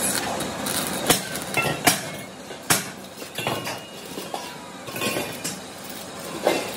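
Stick (arc) welding crackling steadily as a bead is run around the collar on top of a steel LPG gas cylinder. Sharp metallic clinks come about once a second in the first half.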